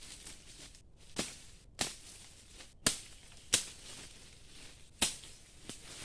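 Five sharp strikes, irregularly spaced about a second apart, from hand-tool work on the camp shelter.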